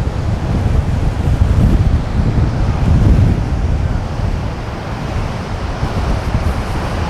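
Strong wind buffeting the microphone in gusts, over the steady wash of big ocean waves breaking at the inlet.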